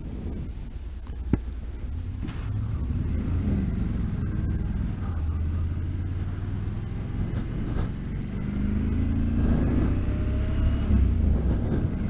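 Honda NC700X's parallel-twin engine pulling away from a standstill and accelerating, its low rumble growing louder a couple of seconds in and its pitch rising again near the end, heard through a helmet-mounted microphone. A single sharp click a little over a second in.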